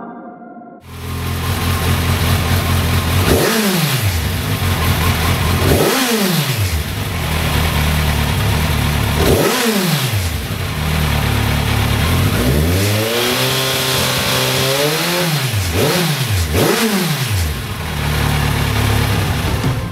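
2016 Kawasaki Z1000's 1043 cc inline-four idling through dual Lextek XP13C carbon slip-on silencers, blipped on the throttle again and again. There are three short revs spaced a few seconds apart, then a longer rev held for about two seconds, then two quick blips in a row.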